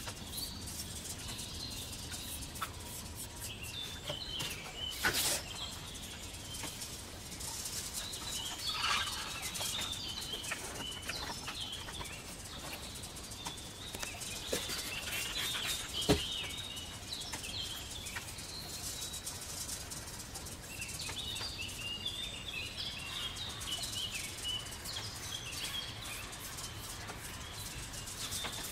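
Small songbirds chirping in short repeated clusters of high notes, with a couple of sharp clicks, one about five seconds in and another about sixteen seconds in.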